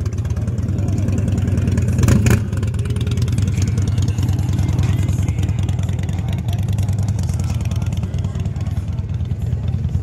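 Custom big-wheel bagger motorcycle engine running as it is ridden in slow turns, with a short louder blip of throttle about two seconds in.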